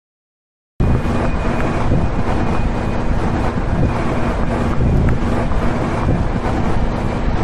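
Wind buffeting the microphone as a loud, steady rumble. It cuts in abruptly about a second in, after silence.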